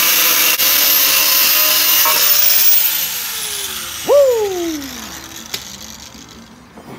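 Angle grinder cutting into a steel steering knuckle, a steady high whine with a hiss of grinding, then let off about three seconds in and spinning down in falling pitch. About four seconds in a short whine rises sharply and falls away, with a click a second later.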